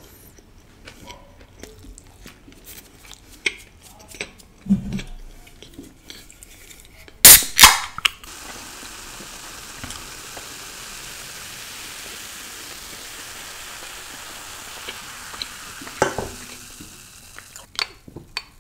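Soft chewing at first. About seven seconds in, a can of cola is snapped open, the loudest sound. Then cola is poured into a glass, fizzing with a steady hiss for about eight seconds, and there are a couple of glass knocks near the end.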